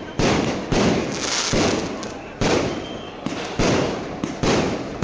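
Fireworks bursting in quick succession: about six sharp bangs, spaced roughly half a second to a second apart, each fading out before the next.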